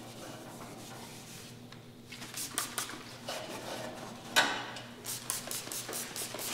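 Hand trigger spray bottle squirting wax and grease remover onto bare sheet metal: a series of short hissing spritzes starting about two seconds in, one louder spritz midway and several in quick succession near the end, between rubs of a rag over the panel. A low steady hum runs underneath.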